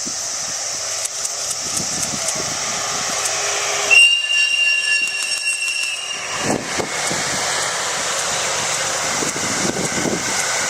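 EF81 electric locomotive sounding its whistle once, a loud steady high note lasting about two seconds, beginning about four seconds in. After it the train runs past with low rumbling and rhythmic wheel thumps over a steady high hiss.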